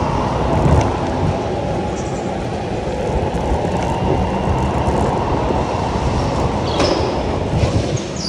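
On-board sound of an electric go-kart driving at speed on an indoor track: a loud, steady rumble of the kart and its tyres on the smooth floor, with short high squeaks near the end.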